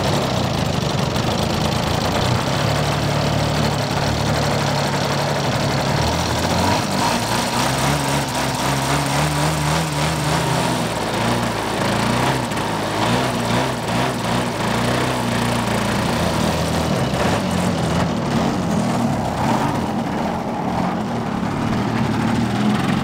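Hornet HE125 125cc gasoline engine of a large radio-controlled Carbon Cub model plane running. Its pitch steps up about six seconds in, then rises and falls.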